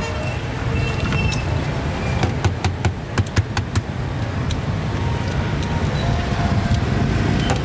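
Street ambience: a steady low rumble of road traffic, with a quick run of sharp clacks about two to three seconds in.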